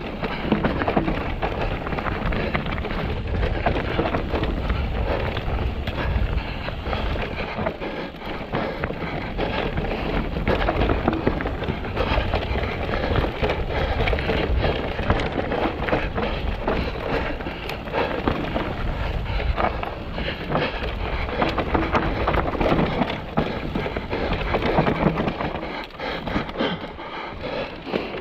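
Mountain bike descending a rough, rocky trail: a continuous rumble and clatter of tyres over rock, with the bike's frame and chain rattling in dense clicks.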